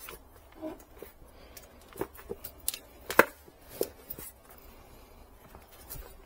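Irregular clicks and knocks of a black plastic plant pot flexing and bumping as gloved hands tilt it and work the tree's root ball loose, with a sharp knock about three seconds in.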